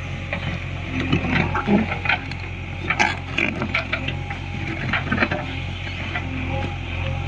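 JCB 3DX backhoe loader's diesel engine running steadily, with irregular clanks and knocks over it, clustered about a second in, around three seconds in and again near five seconds.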